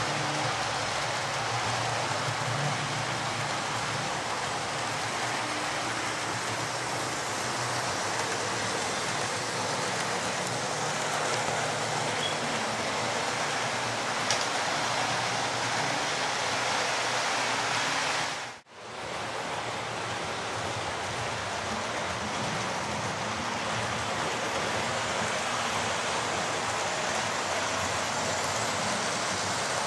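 Model Class 43 HST trains running around a layout: a steady whirr and rumble of motors and wheels on the track, with a momentary drop-out about two-thirds of the way through.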